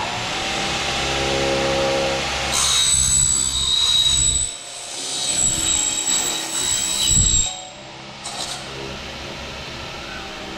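Conventional aluminium-cutting table saw: the circular blade hums at speed, then a loud high-pitched screech for about five seconds as it is pulled up through an aluminium extrusion. The screech drops away about three-quarters of the way in as the cut ends.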